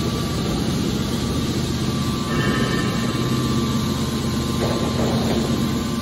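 Hydraulic metal baler running steadily as its top lid is pressed closed, a continuous machine hum with a steady whine; a few higher tones join in about two seconds in.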